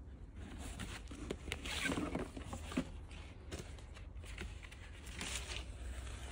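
Cardboard LP album jacket and paper sleeve rustling and scraping in the hands, with the vinyl record slid out of its jacket, in irregular handling noises.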